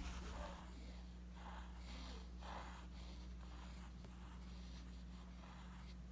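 Mechanical pencil lead scratching across college-ruled notebook paper in a run of short strokes, writing cursive letters. A steady low hum runs underneath.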